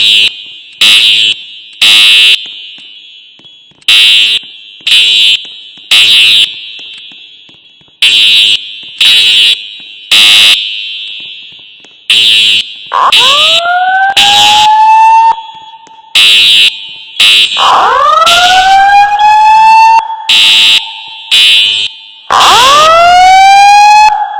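Fire alarm sounding in the three-blast evacuation pattern: groups of three loud horn blasts, one a second, with a pause between groups. From about halfway through, a rising whoop tone joins in three times, about four to five seconds apart, among the blasts.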